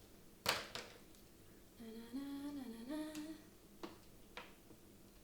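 DDR4 RAM stick snapping into a motherboard slot: a sharp click about half a second in, then a woman hums a few wavering notes, and two lighter clicks follow near the end.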